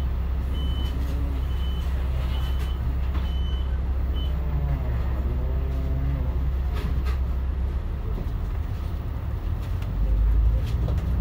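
Volvo D10A-285 diesel engine of a Volvo Super Olympian double-decker bus running with a steady low rumble at a standstill. About ten seconds in, the engine grows louder as the bus pulls away. A run of short high beeps sounds over it in the first four seconds.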